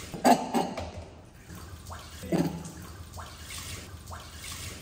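Tap water running into a sink basin while a baby's milk bottle is washed. Short, louder voice-like sounds break in about a quarter second in and again around two and a half seconds in.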